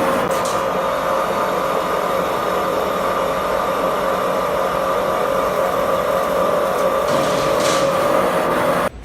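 CNC pipe threading lathe running with a steady machine hum carrying a couple of held tones. It cuts off abruptly near the end.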